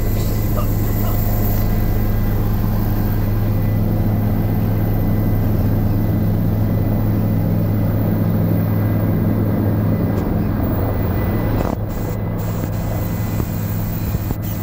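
Helicopter engine and main rotor heard from inside the cabin: a loud, steady drone with a deep hum, a little quieter from about twelve seconds in.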